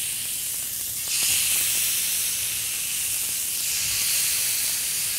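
Mahi mahi fillets sizzling on a hot oiled grill pan: a steady high hiss that grows louder about a second in as another fillet is laid down.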